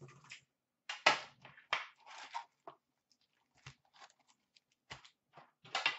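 A string of short clicks, knocks and rustles: a metal Upper Deck hockey-card tin being handled and opened, and the card packs inside lifted out.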